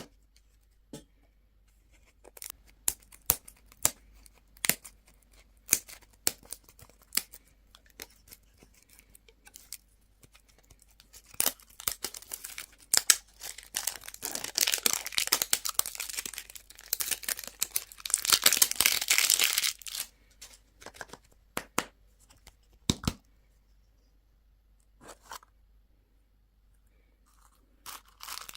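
Candy and toy packaging being unwrapped by hand: scattered taps and clicks, then about eight seconds of continuous tearing and crinkling of wrapper through the middle, then a few more clicks.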